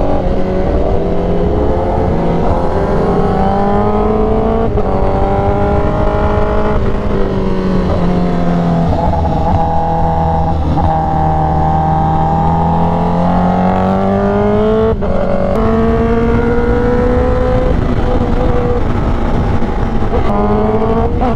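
Honda CBR1000RR-R Fireblade SP inline-four engine under way through an SC Project exhaust with the catalytic converter deleted. Its pitch rises and falls with the throttle and breaks off briefly a few times as gears are changed.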